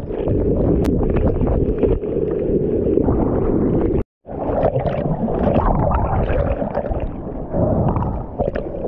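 Breaking surf rushing and splashing around a kayak, close at the water's surface. It breaks off sharply for a moment about four seconds in, then water slaps and swirls against the kayak's hull with paddle splashes.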